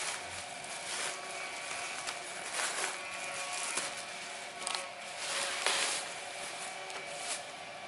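Handling noises from unboxing a tree saw: rustling and rubbing of packaging, with a few louder scrapes about three seconds in and again near six seconds. A faint steady hum sits underneath.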